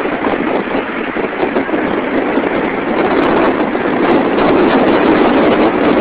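Strong wind buffeting the microphone: a loud, steady rushing noise.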